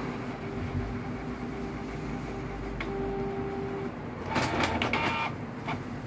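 Canon PIXMA G3420 inkjet printer's internal motors running as it works through a nozzle check: a steady mechanical hum, then about four and a half seconds in a second-long stretch of rapid clicking and whirring, followed by a couple of single clicks.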